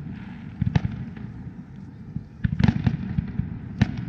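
Aerial fireworks shells bursting: sharp bangs in small clusters, a pair under a second in, a quick run of several around two and a half seconds, and one more near the end.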